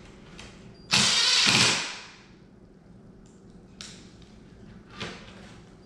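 Cordless power drill running in one burst of about a second, driving a fastener into the wooden frame of a knock-down sofa ottoman. A few light clicks of handling follow.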